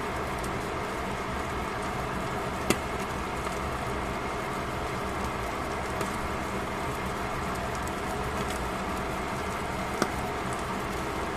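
Fish sizzling in a covered frying pan, a steady crackling hiss of spitting juices under the lid, with two sharp pops: one about three seconds in and one near the end.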